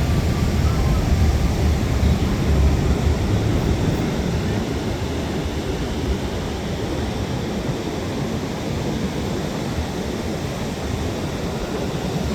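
Steady rushing outdoor noise with a deep low rumble, heaviest in the first few seconds.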